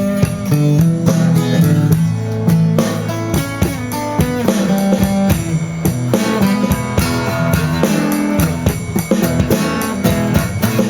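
Live blues band playing an instrumental passage: guitar lines over a steady drum-kit beat.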